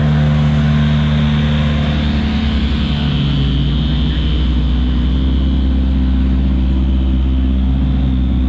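Race car engines running at low, steady revs as GT3 cars roll slowly past one after another: a Ferrari GT3 car, then a BMW M6 GT3's twin-turbo V8 coming close from about three seconds in.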